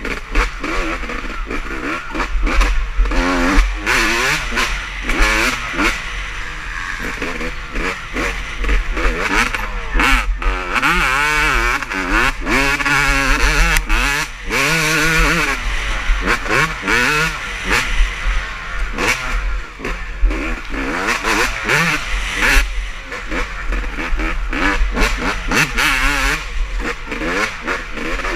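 Motocross race bikes revving hard and shifting as they go around the track. Several engines overlap, their pitch climbing and dropping again and again, over a steady deep rumble.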